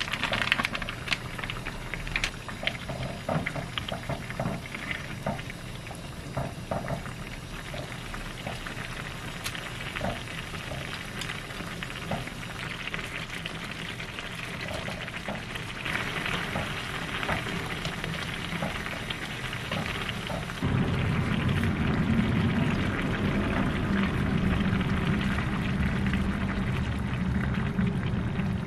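Pan of spicy kimchi broth boiling hard: steady bubbling with many small pops and ticks, with udon noodles being stirred through it using wooden chopsticks. About two-thirds of the way in the bubbling gets louder and deeper.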